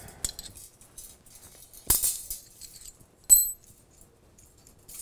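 Metal clicks and clinks from a brake-line flaring tool being loosened and opened off a freshly flared line, with a sharp click about two seconds in and a ringing metallic clink a little over three seconds in.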